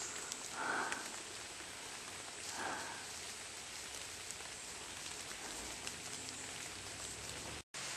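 Light rain pattering steadily on forest leaves, with a couple of soft footfalls on the dirt trail.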